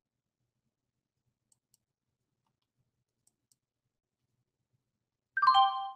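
A few faint clicks. Then, about five and a half seconds in, a short, bright electronic chime of several tones sounds together: the thinkorswim trading platform's alert as a sell market order fills.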